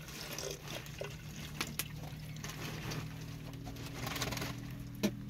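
Thick red liquid being poured from a handheld vessel into a tall cup, coming in spells, with a few light knocks of the containers against each other.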